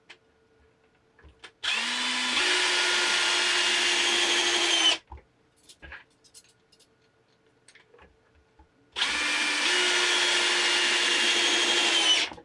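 Kielder cordless combi drill in screwdriver mode, first gear, driving woodscrews into wood twice. Each run lasts about three seconds: the motor steps up in pitch just after starting, runs steadily and stops abruptly. Between the two screws there are only faint knocks and handling.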